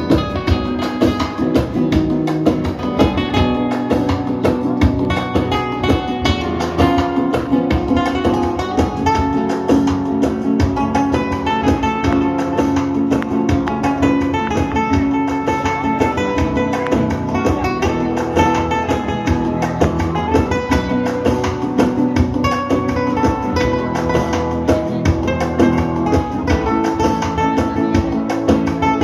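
Instrumental break of a gipsy rumba song: strummed and plucked acoustic guitars, flamenco style, with a melody line over a fast rhythmic strum.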